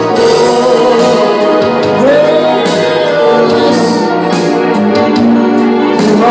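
Live band music: a man singing into a microphone over an electric guitar and an electronic keyboard, with a steady, regular beat.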